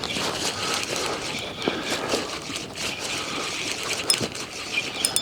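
A spinning reel being wound in against a hooked mackerel, a steady grinding with many small irregular clicks, over water and wind noise around the boat.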